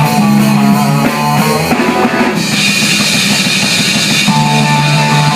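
A rock band playing on a Crush drum kit, with cymbals washing loudly over bass-drum and snare hits. The cymbal wash thins out about two seconds in, and held notes from another instrument carry on underneath.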